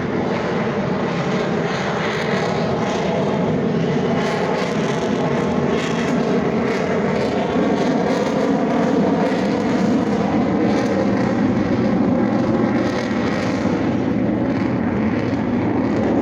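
Airplane engine droning steadily overhead, growing a little louder about halfway through and easing back after.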